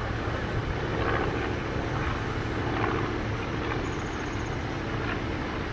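Vintage biplane flying overhead, its propeller engine running steadily.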